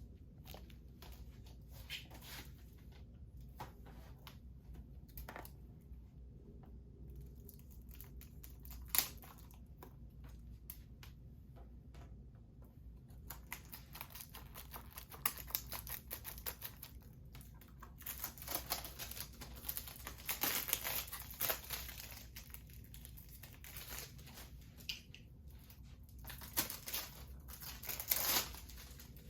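A Blu-ray package being unwrapped by hand: wrapping tearing and crinkling, with scattered light clicks and taps from handling. The crinkling comes in denser bursts about two-thirds of the way through and again near the end.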